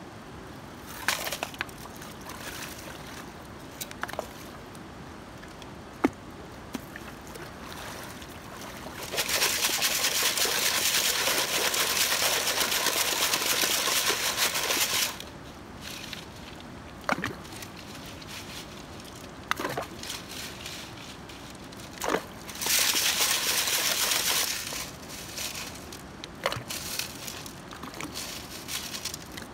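River gravel and stones clattering with water sloshing as gravel is dug and worked in a plastic bucket for gold panning. Single knocks of stone mark the quieter stretches, and two longer spells of steady rattling hiss come about nine seconds in (some six seconds long) and again near the end (about three seconds).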